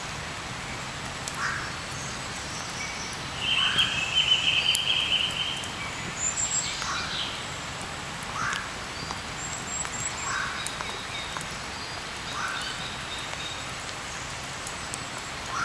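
Several wild birds singing in woodland: a short call repeats about every two seconds throughout, a loud high trill comes in around four seconds in, and thin high chirps are scattered between, over a steady background hiss.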